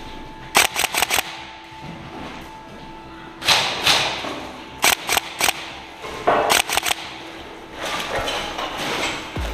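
Airsoft guns firing in several short bursts of three to five rapid shots each, with pauses of about a second between bursts.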